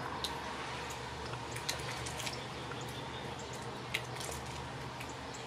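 Rain dripping: irregular drops ticking sharply over a steady soft hiss of rainfall, with two louder drops partway through.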